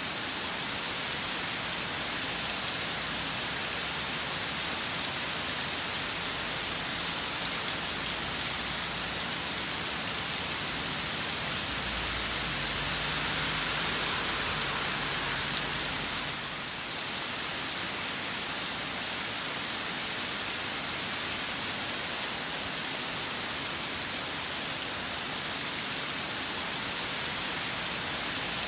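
Steady rain falling in a storm, a dense even hiss, swelling a little about halfway through with a brief low rumble underneath.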